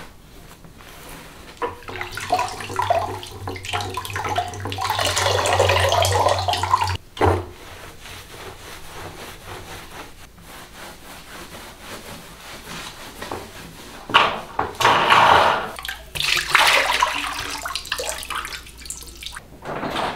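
Water running and splashing onto a wet tiled bathroom floor, with a low hum beneath. It builds, then cuts off suddenly about seven seconds in, followed near the end by two shorter bursts of splashing.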